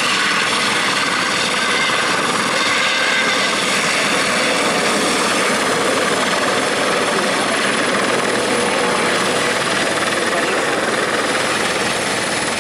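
Eurocopter EC130 helicopter with a Fenestron tail rotor flying a low pass close by. Its rotors and turboshaft engine make a loud, steady noise with high whining tones running through it.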